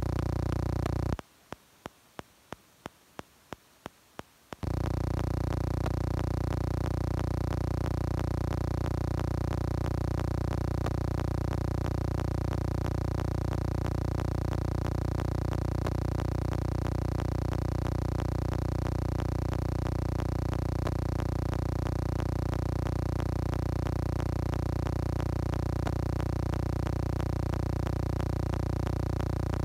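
A steady electronic hum made of many fixed tones, unchanging throughout. It cuts out about a second in and comes back about three seconds later; during the gap only faint regular ticks, several a second, are heard.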